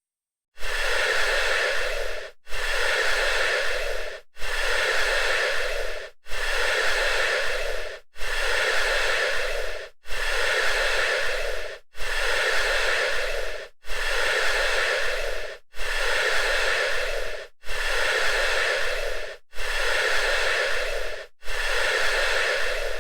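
Electronic alarm buzz repeating in twelve even pulses, each nearly two seconds long, with a short break between them.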